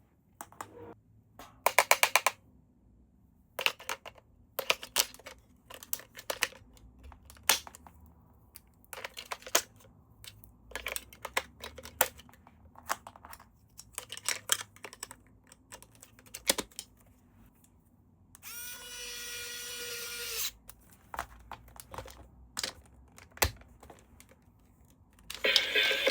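Handling of an electric toy and its packaging: a long run of irregular clicks, crinkles and rattles. About two-thirds of the way through, a steady electronic tone sounds for about two seconds. Near the end, the battery-powered toy starts playing its electronic tune.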